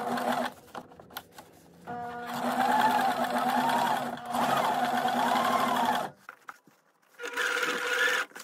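Electric household sewing machine running a zigzag stitch in bursts as it is stopped and started. It runs briefly at the start, then for about four seconds with a whine that rises and falls, then again briefly near the end.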